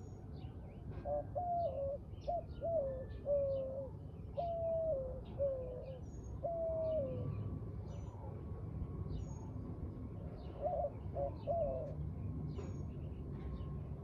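A dove cooing in a run of short notes that drop at the end, then a quicker run of three notes later on, with scattered brief high chirps of small birds throughout.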